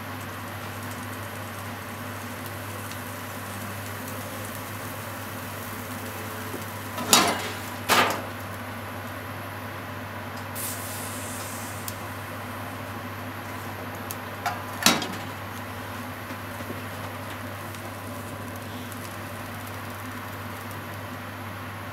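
A metal frying pan knocking against a gas stove's grate as it is lifted, turned over and set back down: two knocks a little under a second apart about seven seconds in, and a few small clicks and another knock around fifteen seconds. A steady hum runs underneath, with a brief hiss around eleven seconds.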